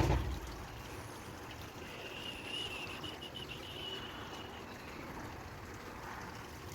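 Steady trickle of running water, with a dull bump right at the start and a faint high tone in the middle.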